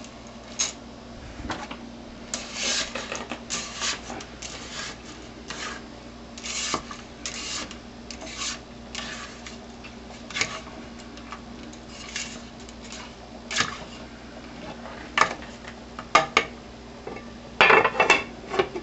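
Dry spaghetti snapped by hand into a pot of boiling water, then a spoon stirring and scraping the pasta in the pot. Near the end a pot lid goes on with a few sharp knocks.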